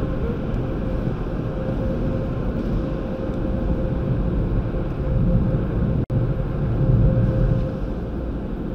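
Steady low rumble of a car, with a faint steady whine above it; the sound cuts out for an instant about six seconds in.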